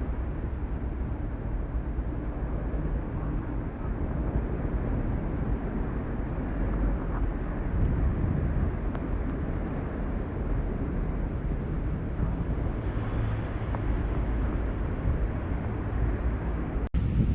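Steady low rushing rumble of wind buffeting the microphone over a swollen, fast-flowing river. The sound drops out suddenly for an instant near the end.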